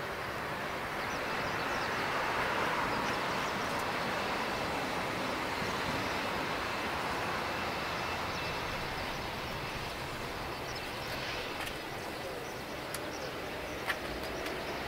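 Airbus A320-232's IAE V2500 jet engines running at taxi power, a steady rushing hum as the airliner taxis past. A brief click near the end.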